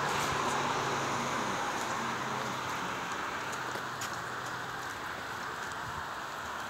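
Road traffic on the adjacent highway: a steady hiss of tyres and engines that slowly dies down.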